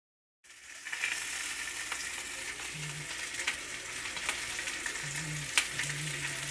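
Crab-stuffed chicken sizzling in a skillet, a steady frying hiss that starts about half a second in, with a few sharp clicks of a metal utensil against the pan.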